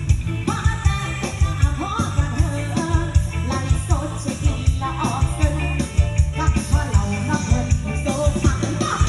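A song with a singing voice and a heavy, regular bass beat, played loud through a homemade outdoor loudspeaker system under test.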